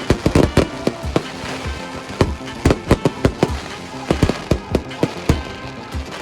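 Fireworks display: shells bursting in rapid, irregular bangs, several a second, over music playing.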